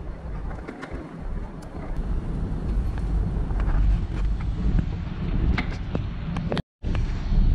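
Escalator running: a steady low rumble with a few light clicks and taps over it. The sound cuts out for a split second near the end.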